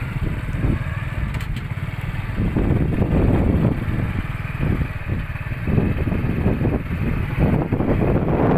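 Motorcycle engine running with a low, even rumble. From about two seconds in, wind buffets the microphone in loud gusts.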